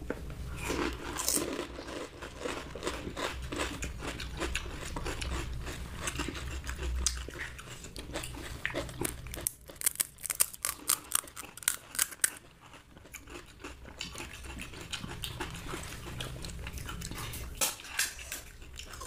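Crisp pani puri shells crunching and cracking as two people bite into them, with chewing in between. The crunches come thick and fast about halfway through.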